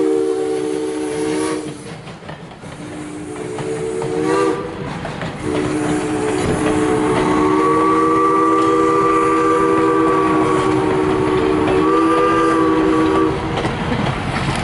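Steam locomotive's chime whistle blowing: one blast ending about two seconds in, a shorter one, then a long blast of about eight seconds, over the steady rumble of passenger coaches rolling past on the rails.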